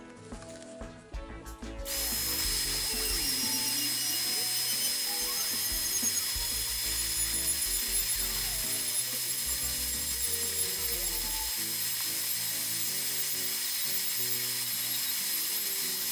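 Dremel rotary tool sanding the edge of a cured resin tray. It starts about two seconds in with a steady high whine over a grinding hiss.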